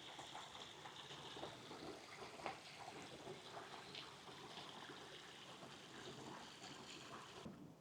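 Faint outdoor ambience: a steady high hiss with scattered soft ticks, which cuts off suddenly near the end.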